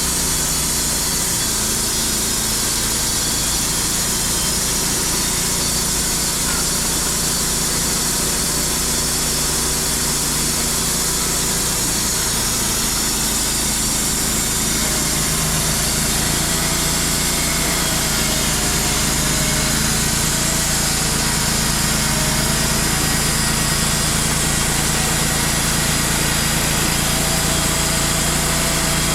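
Wood-Mizer portable band sawmill with its engine running steadily, a low engine note holding throughout with a slight shift about halfway through.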